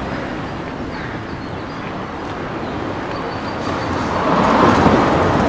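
Town street ambience with traffic noise. A vehicle grows louder and passes about four seconds in.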